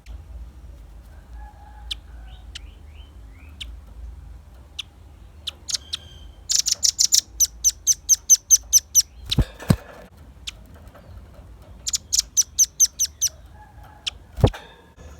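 Velvet-fronted nuthatch calling: scattered sharp high chips, then two rapid trills of loud 'chit' notes at about six a second, a long one about halfway through and a shorter one near the end. Two short thumps fall between and after the trills.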